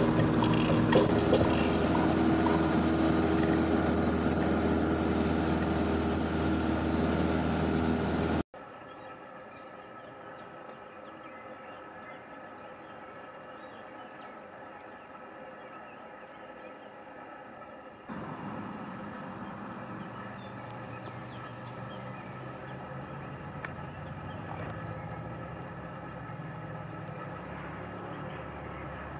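Jodel light aircraft engine running steadily, heard from on board over the cowling, until it cuts off abruptly about eight seconds in. After that, crickets chirp in a fast, even pulse, and from about eighteen seconds a faint low drone of the distant light aircraft's engine joins them.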